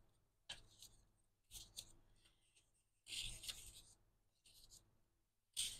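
Pages of a scrapbook paper booklet being flipped one by one: faint papery rustles, about five page turns roughly a second apart.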